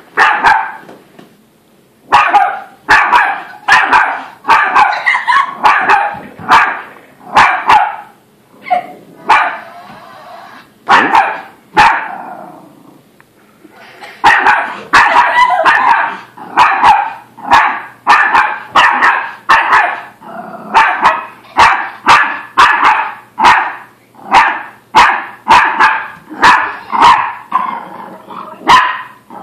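Small terrier barking repeatedly at a Zhu Zhu Pets toy hamster, a steady string of sharp barks about one or two a second, with a few short pauses early on and in the middle. The dog is upset by the toy.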